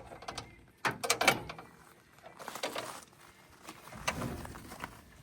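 Metal clanks and rattles of trailer hitch hardware being handled, with a quick cluster of sharp clanks about a second in, then softer scattered handling noise.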